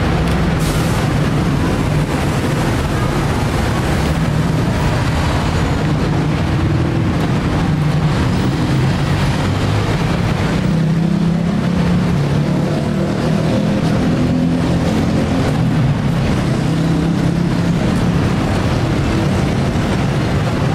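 Steady low rumble of motor traffic, with a wavering engine-like hum.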